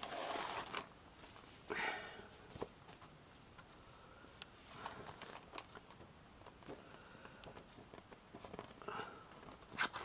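Scrapbooking papers and craft-kit packaging being handled and sorted: quiet, intermittent rustling and crinkling in short bursts, with a few light clicks.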